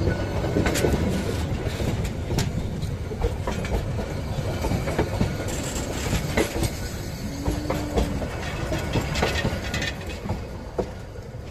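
Passenger coaches' steel wheels rolling past on the rails: a steady rumble with repeated clacks and knocks from the bogies. There is a short steady whine a little past halfway, and the sound drops near the end as the last coach passes.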